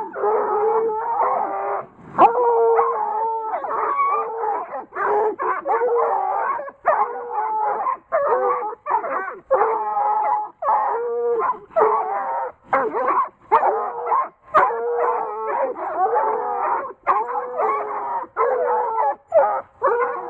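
A pack of Redtick and Bluetick coonhounds baying at a raccoon caged in a wire live trap, with several voices overlapping in long bawling calls broken by brief gaps.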